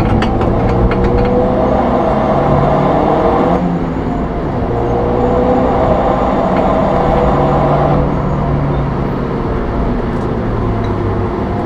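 Suzuki Swift's engine and road noise heard from inside the cabin under hard acceleration. The engine note climbs steadily, drops about three and a half seconds in, climbs again, and drops once more about eight seconds in.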